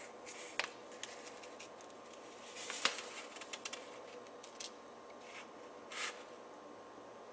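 Faint, brief rustles and scrapes of a hand moving over a large paper sheet of house plans, the loudest a little under three seconds in, over a faint steady hum.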